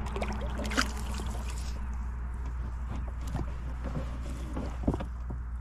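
Anchor and its rope being handled against the hull of a small plastic boat: scattered small knocks and rubbing, with a sharper knock about a second in and another near the end, over a steady low hum.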